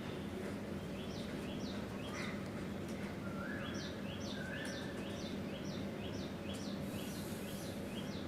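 Small birds chirping: short high chirps repeated two or three times a second, with two brief flat whistled notes about three seconds in, over a steady low background hum.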